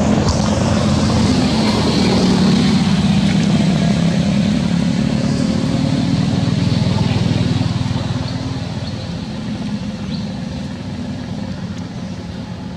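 Low steady engine rumble, like a passing motor vehicle, loud for the first several seconds and fading away after about eight seconds.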